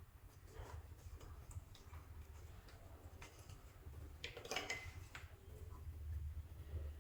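Soft clay squeezed and worked by hand, giving faint sticky clicks and crackles. A louder run of crackling comes about four and a half seconds in.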